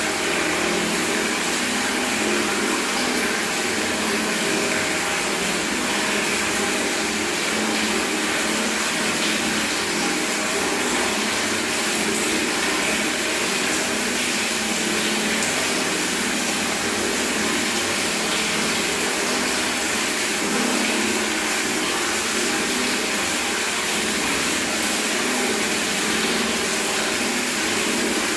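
Tap water running steadily into a bucket in a bathroom: an even, unbroken splashing rush.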